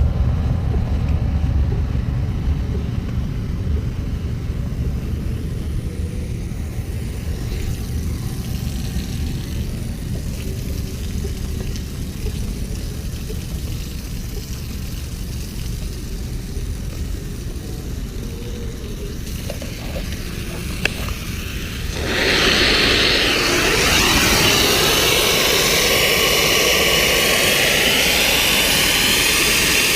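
Hot-water pressure washer engine running steadily with a low rumble. About 22 seconds in, the spray starts with a sudden loud, steady hiss of the high-pressure water jet over the engine.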